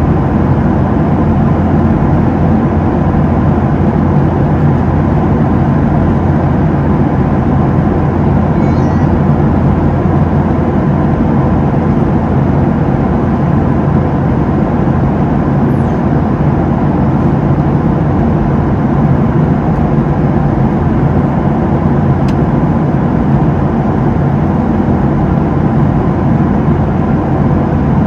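Steady engine and airflow drone of a Boeing 737-700's CFM56-7B engines, heard from inside the passenger cabin: an even, unbroken low hum with a few steady low tones.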